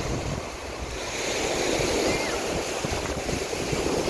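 Ocean surf breaking and washing up onto a sandy beach, with wind buffeting the microphone. The wash swells up about halfway through.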